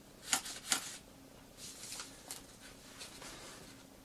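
Folded origami paper handled to make it peck: two sharp paper clicks in the first second, then faint scattered rustling of the paper.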